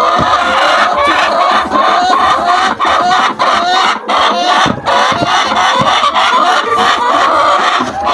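A flock of laying hens clucking and calling without pause, many short calls overlapping.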